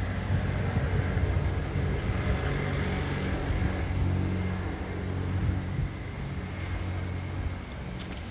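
An engine running nearby with a low, steady hum that eases off after about six seconds.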